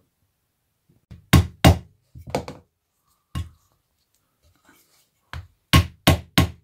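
Hammer knocking on a wooden block held against a plastic pipe-coupling driver, tapping a front-fork oil seal down into a moped's fork slider. There are about ten sharp knocks in uneven groups, the loudest pair about a second and a half in and a run of four near the end.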